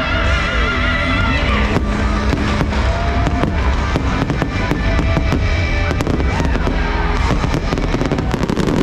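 Fireworks bursting in rapid, overlapping succession over loud music.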